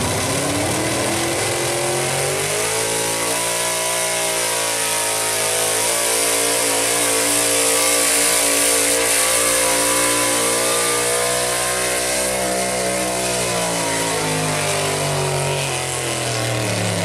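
Gas V8 engine of a Ford pickup pulling truck at full throttle as it drags a weight-transfer sled. The revs climb over the first couple of seconds, hold high and steady through the pull, then drop over the last few seconds as the truck comes to a stop.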